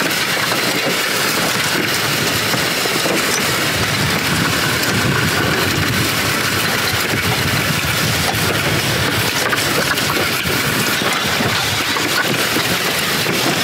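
Ox-drawn steel Martin Ditcher scraping steadily through the dirt, its disc and moldboard blade digging in along the ditch edge and throwing earth toward the centre of the road.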